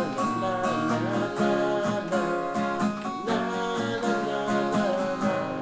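A man singing with his own acoustic guitar accompaniment, strumming chords under the melody.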